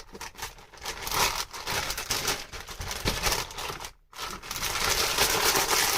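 Rapid crinkling and scraping noises, dense with small clicks, broken by a brief pause about four seconds in.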